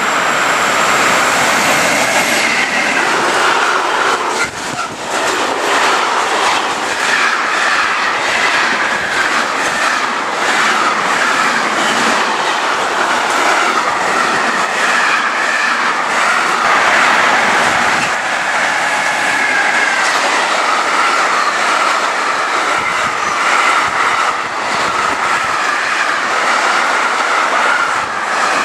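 Freight train hauled by a DB Class 152 electric locomotive passing close by: a steady rumble and clatter of wagon wheels over the rail joints, with a wavering high squeal from the wheels coming and going.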